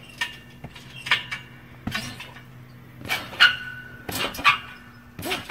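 Trampoline in use: the mat thumping and the springs squeaking with each bounce, about once a second.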